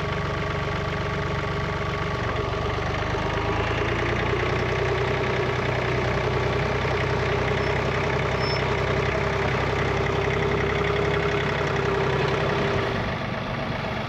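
John Deere tractor engine running; the revs rise about three seconds in and hold with a steady whine over them, then drop back near the end. This fits the loader reaching up to grab a round bale.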